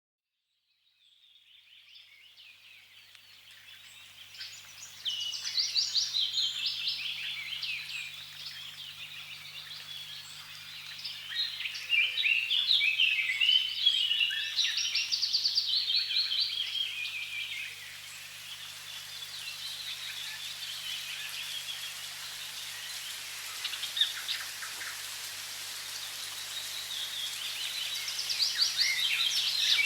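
Songbirds singing in a busy chorus of rapid chirps and trills over a faint steady hiss, fading in from a moment of silence at the start.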